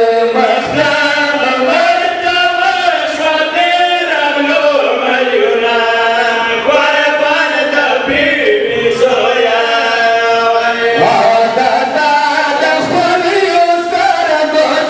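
A group of men chanting a Pashto noha, a Shia mourning lament, together into microphones. The voices hold long melodic lines without a break.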